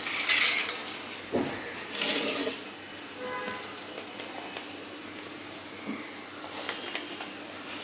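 Eating by hand from a steel plate: fingers working rice, with two short loud hissing noises, one at the start and one about two seconds in, a dull knock between them, then quieter small clicks.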